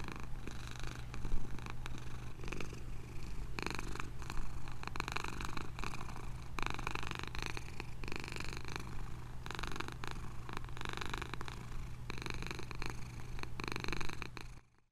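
Domestic cat purring steadily, swelling and easing in stretches about a second long with its breathing, then stopping abruptly near the end.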